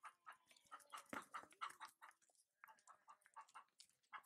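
Near silence: faint quick ticks and rustles, about three to four a second, with a faint short animal call about a second in.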